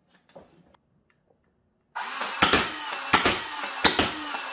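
A Nerf Halo Infinite Needler blaster's motor whirring as it fires darts in a rapid run, with a sharp shot about every 0.7 seconds. It starts abruptly about two seconds in, after near silence.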